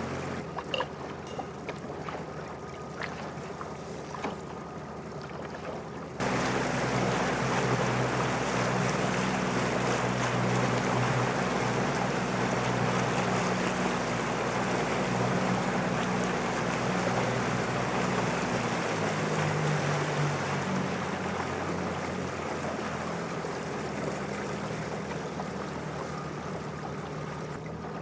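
Outboard motor pushing a small fishing boat at trolling speed, then throttled up sharply about six seconds in, with water rushing past the hull and wind. About two-thirds of the way through the engine pitch drops as it is throttled back to a slower trolling speed.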